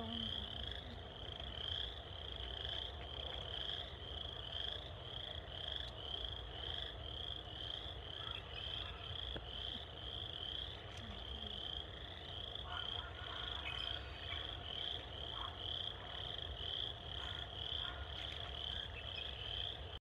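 A chorus of frogs calling steadily at the water's edge: an unbroken, evenly pulsing high-pitched trill of about two calls a second, over a low steady rumble.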